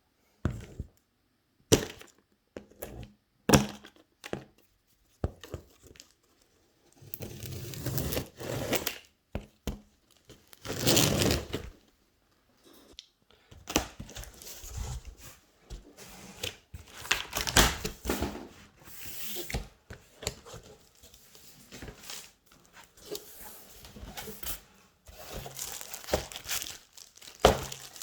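Cardboard box and packaging being torn open and handled by hand: stretches of tearing and crinkling broken by scattered knocks and clicks.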